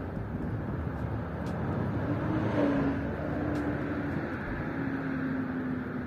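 Street ambience with a car passing, growing louder to a peak a little before halfway and then easing off, with a steady engine hum in the later half.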